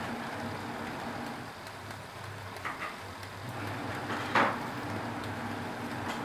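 Gas stove burner running steadily under foil-wrapped fish grilling on a wire rack, with a few short pops, the loudest about four and a half seconds in.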